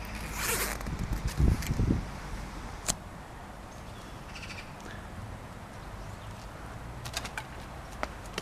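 A jacket zipper pulled open about half a second in, followed by a couple of dull thumps. Then faint outdoor background, with a few light footsteps near the end.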